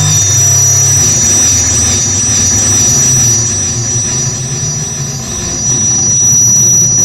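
Loud electronic noise music from tabletop electronics played live: a piercing steady high whistle over fast, repeating warbling chirps and a low droning hum.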